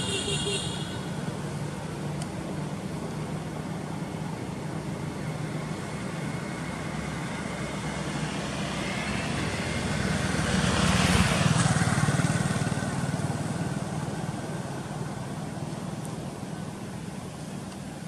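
Motorbike traffic on a road: a horn toots briefly at the very start, then a vehicle passes close about ten seconds in, growing louder and fading away, over a steady hum of engines.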